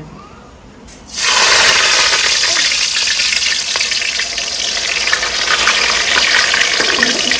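Chopped garlic hitting hot mustard oil in a steel kadhai and sizzling loudly as it fries for the tadka. The sizzle starts suddenly about a second in and keeps up steadily with crackling.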